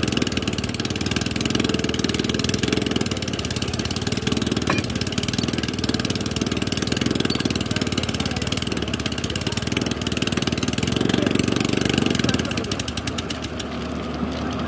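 Engine of a rail-track drilling machine running steadily, getting a little quieter for a moment near the end.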